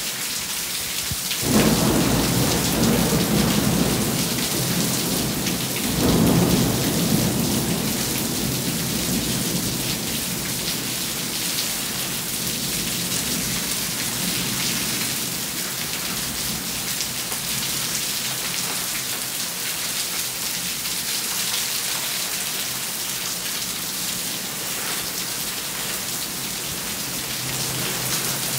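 Steady rain falling, with thunder rumbling twice: a sudden rumble about a second and a half in and another about six seconds in, each dying away over several seconds.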